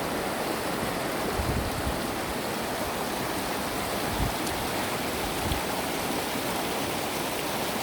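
Mountain valley stream rushing, a steady, even wash of water, with a few brief low bumps on the microphone.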